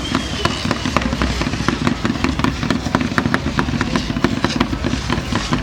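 Fireworks going off at close range: a dense, irregular crackle of many sharp pops, several a second, over a steady low noise.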